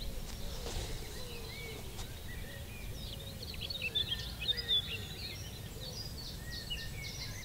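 Outdoor ambience of several small birds singing and chirping, busiest around the middle, over a steady low rumble.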